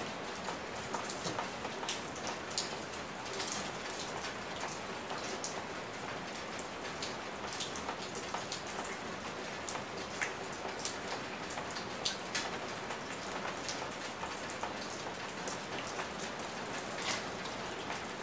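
Steady rain patter: an even hiss with many scattered sharp drop ticks at irregular moments.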